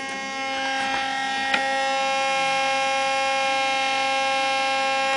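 Optical (CD/DVD) drive of a Dell Dimension 2400 desktop giving off a steady, really loud buzz with a strong even pitch, a sign of a fault in the drive that began after it was forced open with a pin while stuck. Two faint clicks come about a second and a second and a half in.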